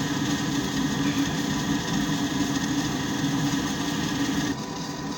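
Keeprite G9MXE gas furnace running, its inducer fan motor whirring steadily with a constant hum. The sound thins out slightly near the end.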